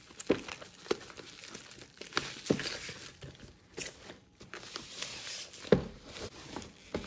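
Clear plastic film crinkling and tearing as hands pull it off a cardboard box, irregular crackles with a few sharper knocks and a brief lull a little past halfway.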